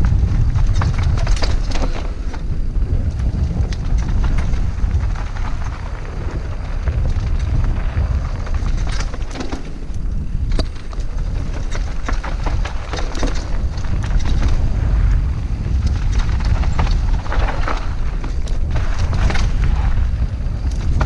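Wind buffeting a helmet-mounted camera's microphone as a Scott Genius full-suspension mountain bike descends dry, rocky dirt singletrack at speed. The steady low rumble of the wind is broken by irregular clicks and rattles from the bike and its tyres over rough ground.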